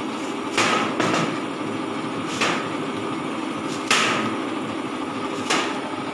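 Chef's knife cutting through apple and knocking on a plastic chopping board: five sharp, irregularly spaced knocks.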